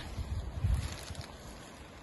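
Wind buffeting the microphone in low, uneven gusts, strongest about a second in, then easing.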